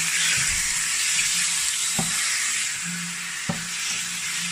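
Raw chicken strips sizzling in hot olive oil with onion and garlic in a stainless steel pan, as a steady hiss, while they are stirred with a spatula. The spatula clicks sharply against the pan twice, about two seconds and three and a half seconds in.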